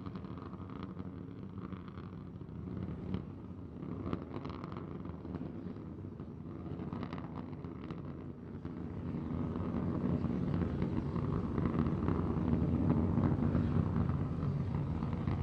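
Starship SN15 prototype's three Raptor rocket engines burning during ascent: a steady, dense rumble that grows louder about two-thirds of the way in.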